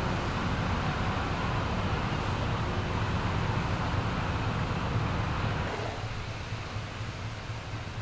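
Low, steady drone of a passing ship's engine under a haze of wind noise; about six seconds in the sound changes abruptly and drops quieter.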